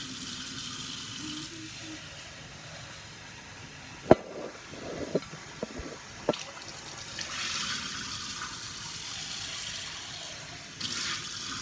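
Kitchen sink tap running, a steady hiss of water starting at once. A few sharp clinks against the sink come through it, the loudest about four seconds in.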